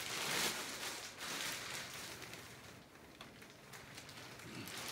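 Clear plastic wrapping rustling and crinkling as it is pulled down off a mattress, loudest in the first second and softer after.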